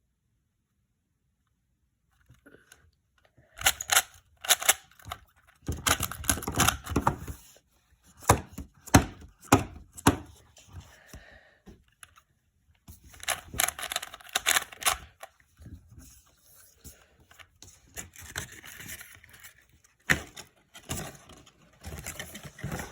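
Hands handling plastic, likely the Rubik's Impossible cube and its packaging, making irregular clicks, knocks and rustling in bursts after about three seconds of near silence.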